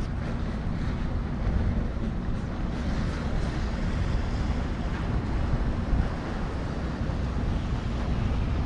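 Wind buffeting the microphone outdoors: a steady rumbling rush, heaviest in the low end, rising and falling slightly in gusts.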